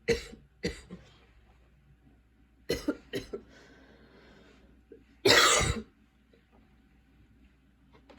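A girl coughing in a fit of a persistent cough. There are two short coughs at the start, a quick run of three about three seconds in, and one longer, harder cough a little after five seconds.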